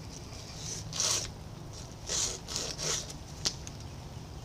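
Abrasive cloth drawn back and forth around a steel lathe shaft, shoe-shine style, in about four short scraping strokes, then a single sharp click. The shaft is being polished smooth after its burrs were dressed off so it slides through its Babbitt bearing.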